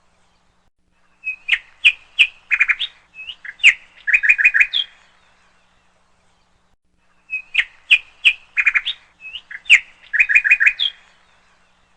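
A songbird singing the same lively phrase twice, a few seconds apart: quick high chirps and short rapid trills, each bout lasting about three and a half seconds.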